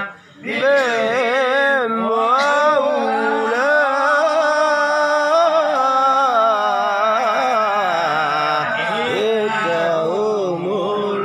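A man chanting an Arabic religious recitation in a long melodic line, holding notes with ornamented, wavering turns. It starts after a brief pause at the very beginning.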